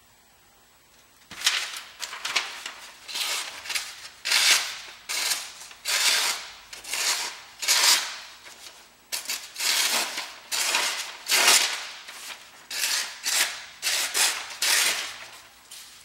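Swamp Rat Rodent Solution knife slicing phone book paper held in the hand, a quick papery swish with each stroke, repeated about twenty times from about a second in. The paper cuts are the owner's check of the edge's sharpness partway through cutting sisal rope.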